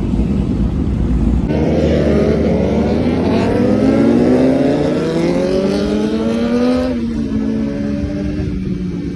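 Sport motorcycle engine accelerating hard, its pitch climbing steadily for about five seconds, then dropping abruptly and holding steady at a lower pitch.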